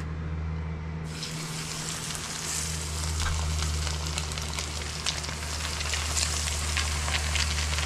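Breaded bluefish fillets sizzling as they shallow-fry in hot oil in a skillet. The sizzle starts suddenly about a second in as the first fillet goes into the pan, and crackling pops run through it.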